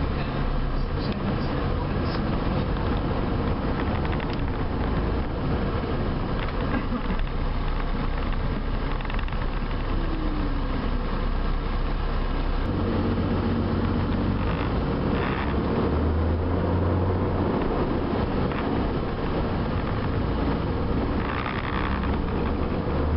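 A bus heard from inside while driving: its diesel engine running under steady road and cabin noise, the engine note shifting a little past halfway and again a few seconds later as the bus turns.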